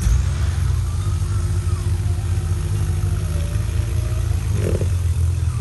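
Off-road Jeep Wrangler's engine running low and steady as the 4x4 crawls slowly through mud.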